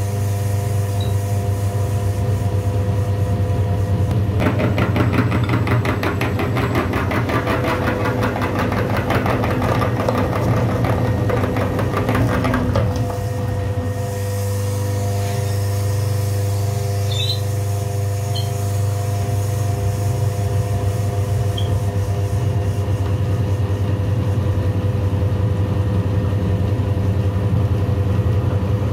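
A steady engine-like hum, low and even, with a fast rattling buzz over it from about four seconds in until about thirteen seconds in.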